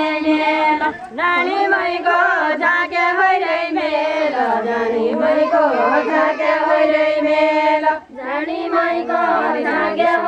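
Group of women singing a deuda folk song together in a repetitive chant-like melody, with no instruments heard. Brief breaks between lines come about a second in and again near the end.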